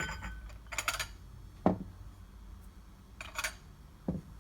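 Coffee cups, saucers and teaspoons clinking as they are set down on a table, about five separate clinks with a bright ring.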